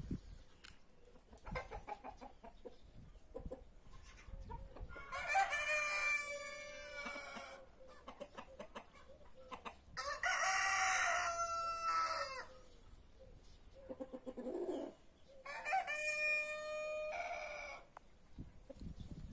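Roosters crowing: three long crows, each about two seconds, spaced about five seconds apart, with quieter chicken calls in between.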